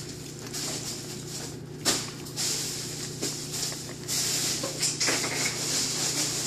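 Dry kibble clicking and rattling as a hand scoops it from a plastic bowl and a puppy eats from its dish, with a sharper click about two seconds in and a cluster of clicks a little past the middle. A steady hiss and low hum run underneath.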